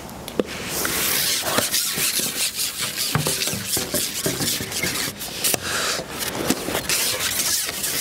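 Long carbon fishing pole being shipped back hand over hand, its sections rubbing and sliding through the hands and over the pole rest, with a continuous rasping rub and irregular clicks and knocks.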